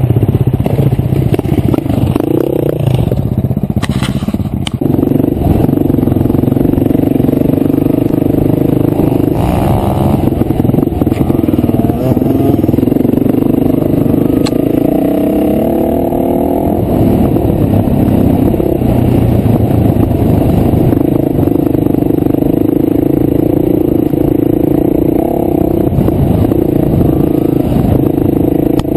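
Off-road motorcycle engine running under load while riding a dirt trail, its revs rising and falling as the throttle changes. A couple of sharp knocks come about four seconds in.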